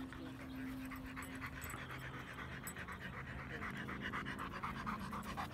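A dog panting fast and evenly, close to the microphone, with many short breaths each second.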